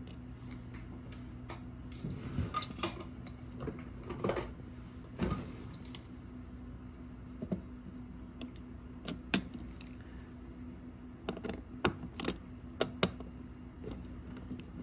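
Small screwdriver working the tight screws on an HP Z Turbo Drive card's metal heatsink bracket: irregular light clicks and scrapes of metal on metal, over a faint steady hum.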